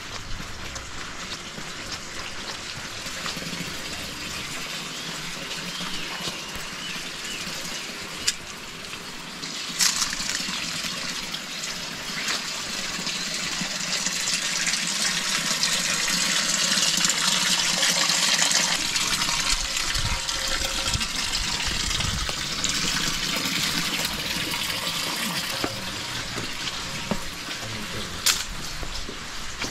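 Rushing water, a steady hiss that swells to its loudest a little past the middle and then eases off somewhat, with a few sharp clicks.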